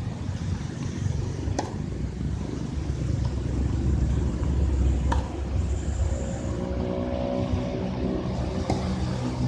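Tennis racket striking the ball three times, a sharp pop every three and a half seconds or so, over a steady low rumble; a steady hum joins about two-thirds of the way through.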